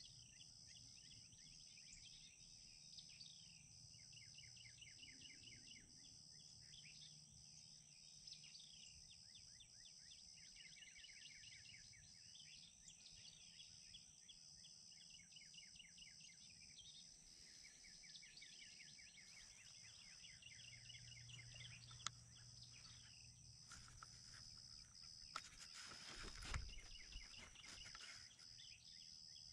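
Faint field ambience: small birds chirping and trilling in quick repeated runs over a steady high-pitched hum. Near the end comes a brief low rumble with a couple of knocks.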